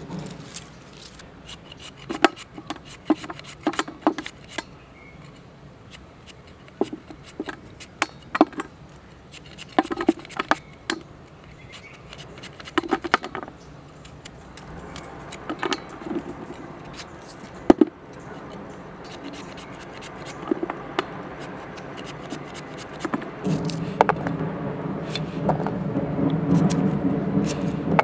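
A large knife blade scraping and nicking the papery skins off garlic cloves, making irregular sharp clicks and scrapes. A steadier low hum comes in near the end.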